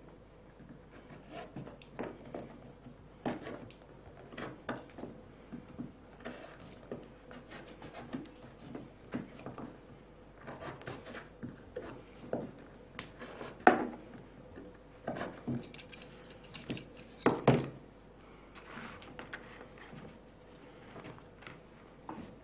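Knife blade cutting and scraping into a stick of wood, a string of small irregular scrapes and clicks as a notch for the bowstring is carved, with a couple of louder knocks in the second half.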